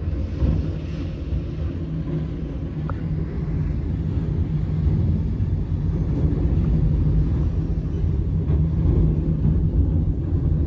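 Loud, steady low rumble of road and wind noise from a moving vehicle, with no distinct crash impact heard.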